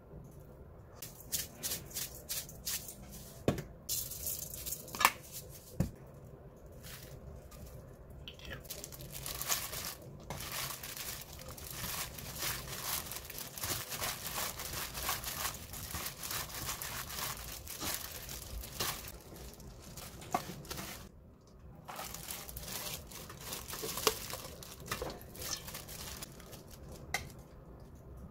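Clear plastic disposable glove crinkling and rustling as blanched spinach is mixed and squeezed by hand in a stainless steel bowl, most densely from about nine seconds in to about twenty. A few sharp taps of a spoon on the steel bowl come in the first six seconds.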